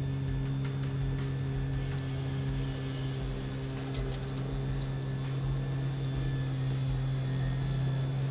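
Corded electric lawn mower running steadily with a constant hum, growing a little louder near the end. A few faint ticks about four seconds in.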